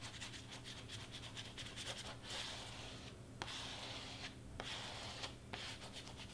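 Faint scratching and rubbing of hands on paper and vinyl: quick light ticks at first, then soft hissing strokes from about two seconds in, with short pauses between them.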